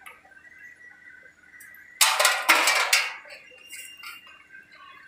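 A loud metallic clatter about a second long, in two quick surges, from metal parts knocking together.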